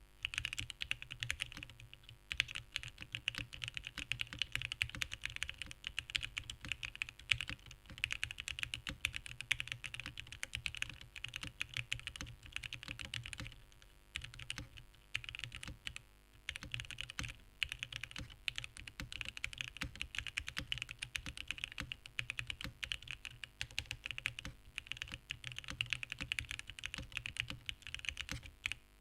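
Continuous typing on a TGR Jane ME mechanical keyboard with Gateron Oil King linear switches, polycarbonate plate and O-ring mount: a rapid stream of keystrokes, with short pauses about two seconds in and again around fourteen and sixteen seconds in.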